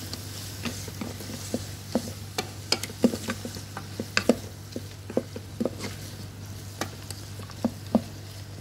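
Wooden spatula stirring diced beef and onions frying in the non-stick inner pot of a Primada electric pressure cooker: irregular knocks and scrapes of the spatula against the pot over a light sizzle, with a steady low hum underneath.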